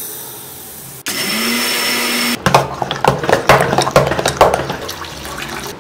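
Finger millet grains pour with a hiss into a glass bowl. About a second in, a kitchen mixer grinder starts suddenly and runs steadily with a low hum for about a second and a half. A stretch of irregular, uneven sloshing follows as thick ragi porridge is stirred in a pot.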